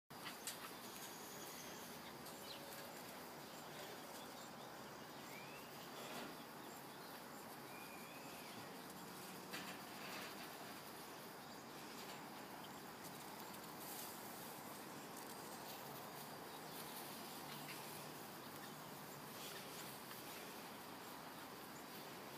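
Faint outdoor background hiss with a steady high whine, a couple of short high chirps in the first half and a few light knocks.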